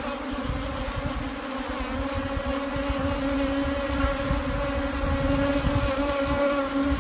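Bees buzzing around a cut wild honeycomb: a steady, pitched drone that holds throughout, with an uneven low rumble underneath.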